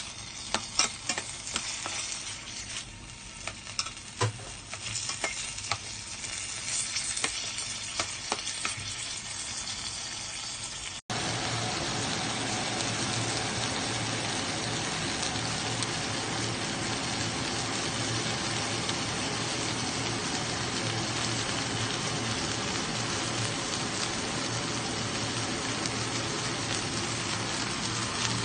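Sliced tomatoes sautéing in oil in a stainless steel pot, the sizzle broken by sharp clicks and scrapes of a spatula stirring against the pot. About eleven seconds in, the sound cuts to a steady, denser sizzle as whole round scad (galunggong) cook in the pot on the tomatoes.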